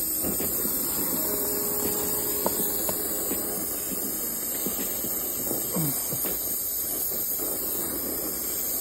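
Brazing torch flame hissing steadily while heating a copper refrigerant line joint as brazing rod is fed in.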